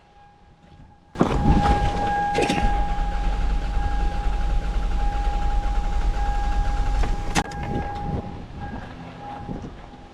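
Starter motor cranking the 2001 Toyota Sienna's 3.0 L V6 for about six seconds, starting about a second in, with a click near the start and another as it stops. A compression tester in cylinder 2 reads zero during the cranking, a sign of the holed valve in that cylinder.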